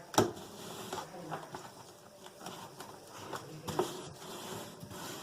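A sharp knock just after the start, then scattered small clicks and a second, softer knock near four seconds in.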